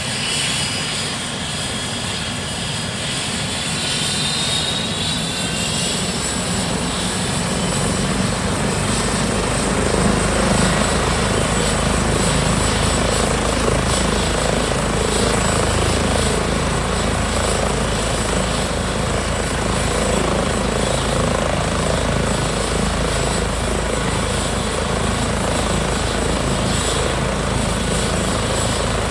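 Rescue helicopter running with a high turbine whine and a steady rotor noise, growing louder about eight to ten seconds in and then holding steady.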